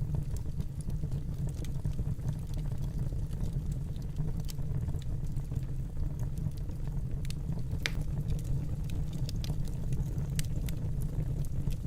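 Wood fire burning in a fireplace: a steady low rumble with scattered crackles and pops, one sharper pop about eight seconds in.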